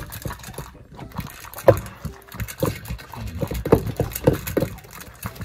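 Labrador retriever eating dry kibble from a plastic slow-feeder bowl: irregular crunching and chewing, a few sharp bites a second.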